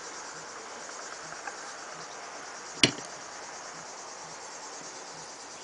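Faint steady chirring of insects, with one sharp knock about three seconds in.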